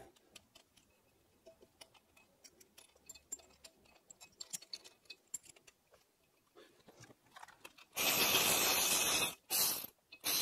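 Light clicks and clinks of hand tools and small engine parts being handled, then near the end a ratchet wrench run fast in two bursts of dense clicking as it spins a loosened bolt out.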